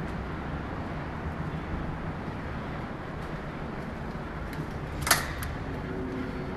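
Steady low rumble of open-air noise, with a single sharp click about five seconds in and a faint steady hum starting near the end.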